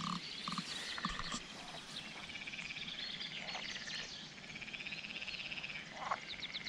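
Frogs calling: overlapping trains of rapid, high pulses that keep recurring, with a few light clicks in the first second or so.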